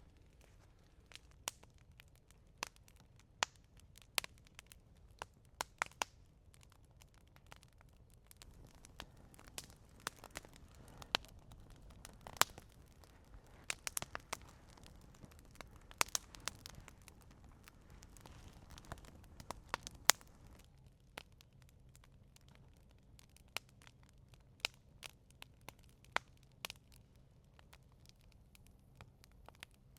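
Dry wood crackling and snapping in irregular sharp cracks over a faint background, busiest through the middle stretch.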